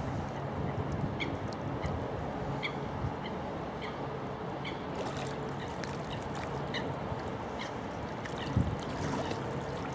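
Steady wind and lake-water noise, with a string of short high calls from waterfowl coming every half second or so, and a single dull thump about eight and a half seconds in.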